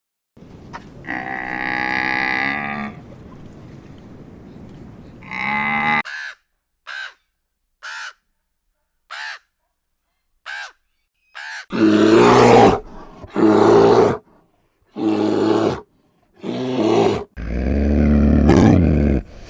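A sequence of different animal calls. First a drawn-out pitched call, then a run of six short cries about a second apart, then four loud, harsh calls and a longer one near the end.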